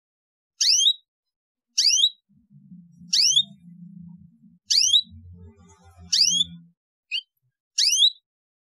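Domestic canary chirping: a short, high chirp that sweeps fast down then up, repeated evenly about once every second and a bit, seven times. Under the middle chirps runs a faint low rumble.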